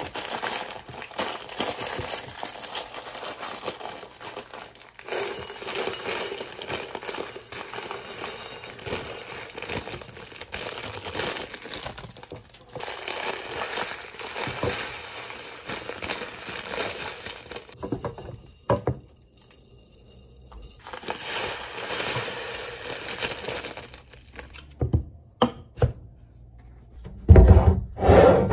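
Plastic bags of dried soup pasta crinkling and rustling as they are pushed and packed into clear storage containers, in stretches with short pauses. A few sharp knocks come near the end.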